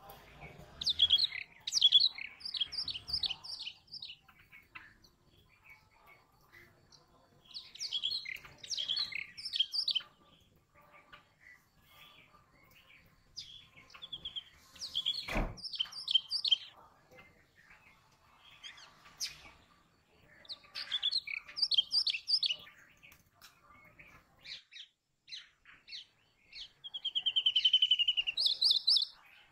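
Brown rock chat calling: short bursts of rapid high chirps every few seconds, with quiet gaps between. A single sharp knock about halfway through, and a quick run of notes near the end.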